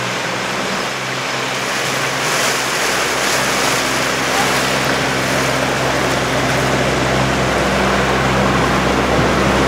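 Outboard motor of a small powerboat running steadily at cruising speed, a constant low engine hum, over a continuous rush of water and wind.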